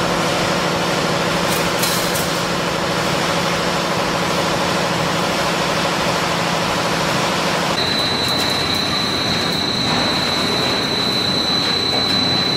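Steady running noise of factory machinery in a wire-processing workshop, with a steady high whine joining about eight seconds in.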